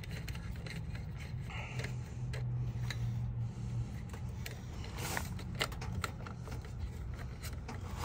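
Hands working wire leads and a screwdriver at an AC disconnect box's terminals: scattered light scraping, rubbing and small clicks, with a brighter scrape about five seconds in, over a steady low hum.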